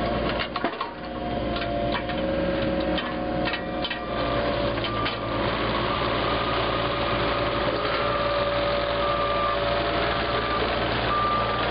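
CAT 303.5E2CR mini excavator's diesel engine running steadily while the machine swings and tracks, with clicks and clanks through the first few seconds and a thin high tone that comes and goes later on.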